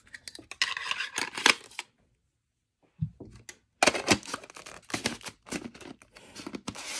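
Hard plastic lightstick parts being handled and fitted together: a plastic diamond insert pressed and twisted into a clear plastic globe, giving quick clicks, taps and scrapes. The clicking stops for about a second a couple of seconds in, then starts again.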